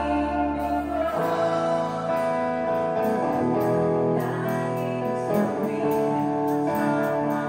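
Live rock band playing: electric guitars over bass and drums, with held chords and a steady ticking cymbal, and a woman singing into the microphone. A deep bass note drops out about a second in.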